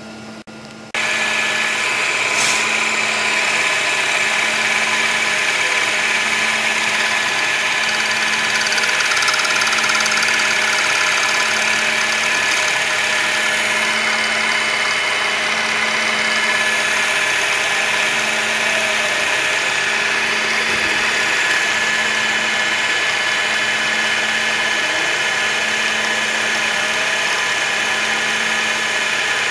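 TOS FN20 milling machine spindle running while its cutter mills half-inch stainless steel plate: a steady machining drone with several constant tones, starting abruptly about a second in.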